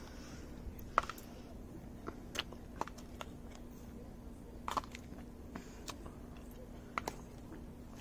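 A metal spoon scooping snow and packing it into plastic ice-pop moulds: scattered soft crunches and clicks, a second or so apart.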